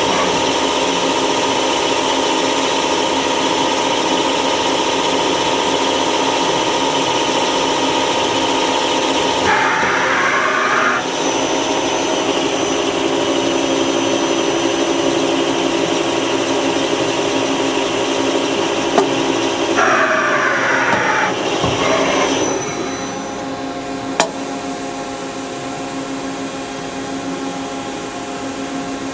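Miyano BND-34S CNC turning center running a program: a steady machine whine with several held tones, broken twice (about 10 and 21 seconds in) by louder stretches of rushing noise whose pitch shifts as they end. There are sharp clicks near 19 and 24 seconds, and the machine runs quieter for the last few seconds.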